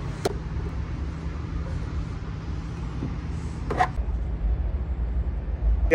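Long-handled squeegee worked over a truck's cab window, with a sharp click just after the start and one short squeak of the rubber on the glass about four seconds in. Under it runs a steady low hum from an idling vehicle.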